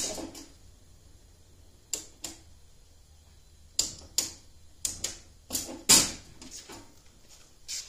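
Irregular sharp clicks and knocks, a dozen or so, the loudest right at the start and another about six seconds in, with no machine running.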